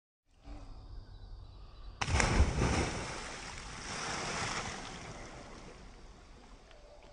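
A person jumping into a pond: a sudden loud splash about two seconds in, then water churning and settling as the swimmer surfaces.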